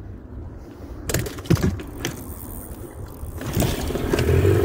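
A few sharp knocks and clatter about a second in, then an outboard motor comes in near the end and runs with a steady hum, growing louder.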